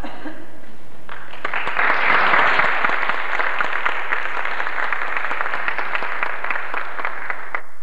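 Theatre audience applauding. The clapping starts about a second in, is loudest a second later, then eases off slightly and breaks off suddenly near the end.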